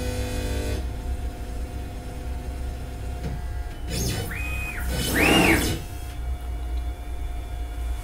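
Onefinity CNC router's stepper motors whining as the machine moves through its probing routine: a short buzz at the start, then two quick moves about a second apart whose pitch rises, holds and falls as the axes speed up and slow down, the second the loudest. A steady low hum runs underneath.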